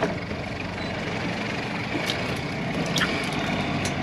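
Boat engine idling steadily, with a few short clicks over it.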